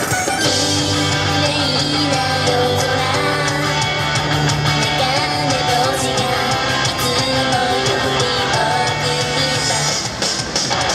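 Upbeat pop-rock idol song playing loud, with electric guitar and a steady bass line; the music shifts briefly about ten seconds in.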